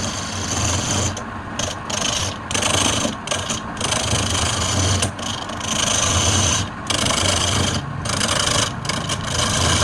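Wood lathe running with a steady motor hum while the spinning wood is worked, its rough scraping coming and going in short passes.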